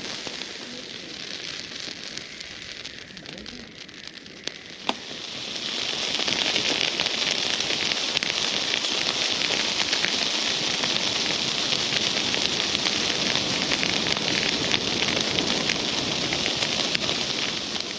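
Wood bonfire burning: a dense crackle and hiss of many small pops, swelling to a fuller, louder burn about five and a half seconds in.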